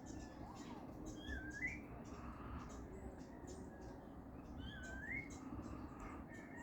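A wild bird calling twice, a short rising whistled note each time, about three and a half seconds apart, over faint steady low background noise.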